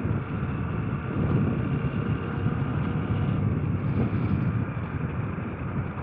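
KTM 890 Adventure R's parallel-twin engine running steadily under way off road, with wind rushing over the microphone.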